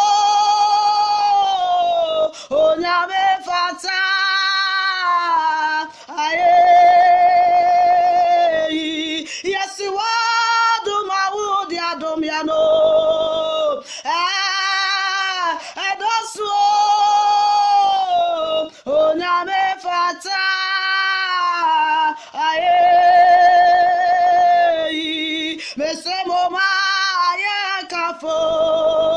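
A woman singing a worship song solo and unaccompanied, holding long notes with a wavering vibrato between short breaths.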